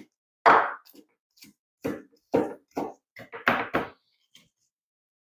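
A cleaver chopping garlic cloves on a wooden cutting board: about nine separate knocks of the blade on the board, roughly two a second and uneven in strength, stopping about four and a half seconds in.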